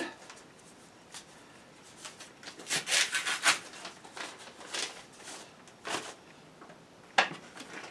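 Paper rustling and scraping in short bursts as a greeting card is pulled from a package and opened, the loudest handling about three seconds in.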